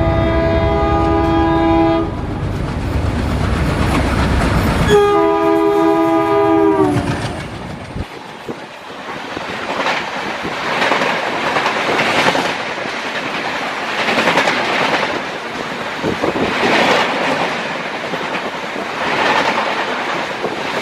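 ALCo diesel locomotive passing on the next track: its engine rumbles loudly under two long horn blasts, the second dropping in pitch as the locomotive goes by. The engine sound cuts off about 8 seconds in, and the coaches follow with a rhythmic clickety-clack of wheels over rail joints.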